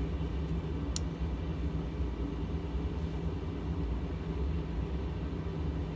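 Steady low background hum, with one light click about a second in from a small hex key working an air rifle's cheek-rest screw.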